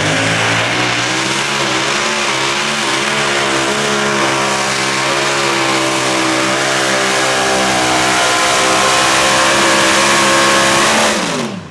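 Mini modified pulling tractor's engine running flat out under load as it drags the weight sled, its pitch held high and wavering slightly as the tyres bite. Near the end the throttle is cut and the engine's pitch falls steeply as the pull finishes.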